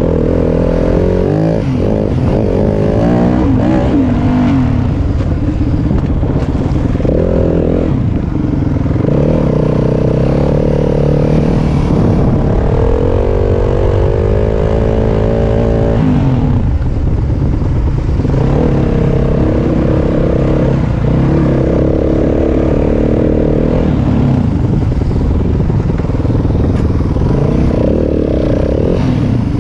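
Yamaha WR250F dirt bike's four-stroke single-cylinder engine running under load, its pitch rising and falling over and over as the rider opens and closes the throttle and shifts.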